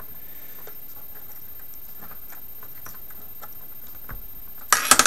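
Faint small clicks of hookup wires and their connector ends being handled and fitted to a control board's terminals, ending in a brief loud clatter of sharp clicks near the end.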